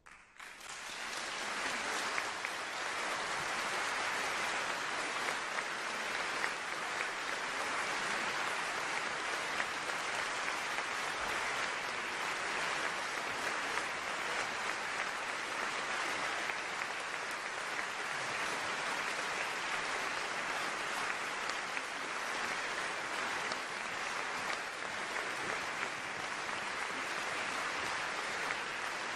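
Large audience applauding: the clapping breaks out of silence and builds to full strength within about two seconds, then holds steady.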